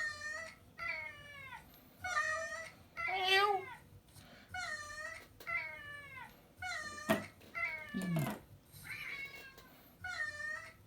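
Cat meows about once a second, about ten in all. Most share the same falling shape, as from a recorded meow sound effect played over and over, while a pet house cat answers with a few meows of its own. A sharp click sounds about seven seconds in.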